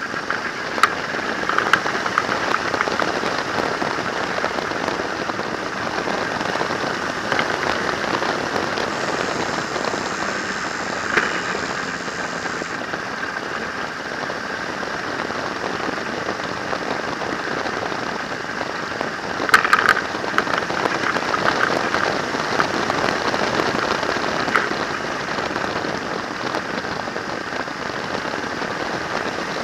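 Wind rushing over the camera's microphone on a moving trike: a steady hiss with occasional crackles and clicks, the biggest cluster about twenty seconds in.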